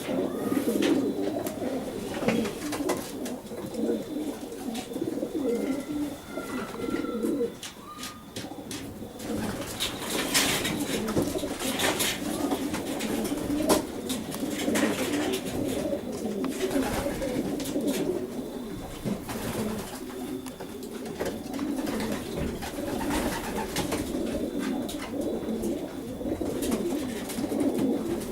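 A group of racing pigeons cooing continuously in a low, wavering murmur, with scattered sharp clicks among them.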